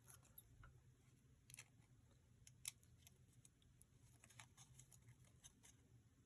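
Faint, irregular snips of small craft scissors cutting paper, fuzzy cutting around a collage image; one snip about two and a half seconds in is sharper than the rest.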